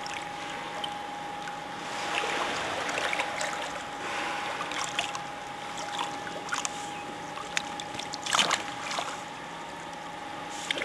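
Pool water lapping and sloshing softly around a dolphin at the surface, with one brief louder splash about eight seconds in and a faint steady tone underneath.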